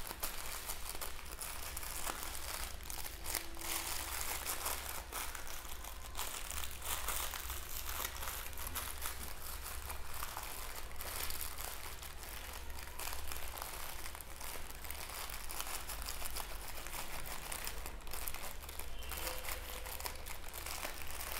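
Foil sachet crinkling and crackling as a hand squeezes and shakes it to tip powder out.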